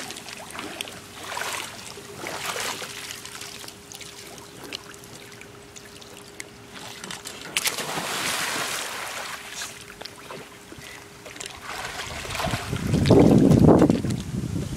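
Pool water splashing and lapping, with one big splash about halfway through as someone jumps into an above-ground pool. A faint steady hum runs under it, and a louder low rumble comes near the end.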